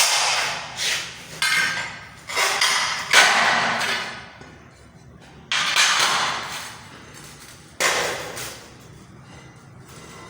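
Ceramic tiles being worked with cutting tools: a series of sudden noisy strokes, several in quick succession and then two more spaced a couple of seconds apart, each fading over a second or two.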